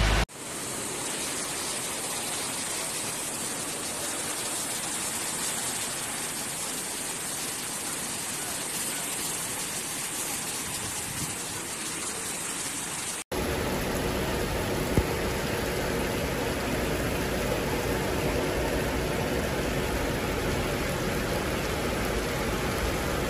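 Steady hiss of heavy rain, in two takes joined by a sudden cut about thirteen seconds in; the second take is louder and fuller.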